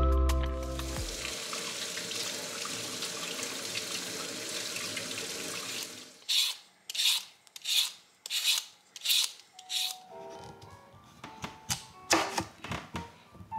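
Music fades into a steady rushing hiss. A vegetable peeler then scrapes down a raw potato in about seven even strokes, roughly two a second. Near the end, a kitchen knife cuts through the potato onto a wooden board with a few sharp knocks, over soft chiming music.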